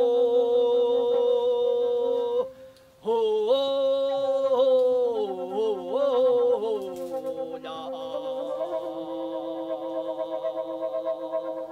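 Voices singing a slow chant: a long held note that breaks off about two and a half seconds in, then a gliding melody, and in the second half a low steady drone held under a higher, wavering line.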